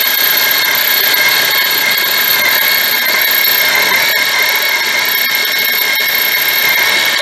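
Benchtop mini mill driving a half-inch drill bit down through a thick aluminum block: a steady motor whine with several high tones over the hiss of the cut. The spindle may be turning a little fast.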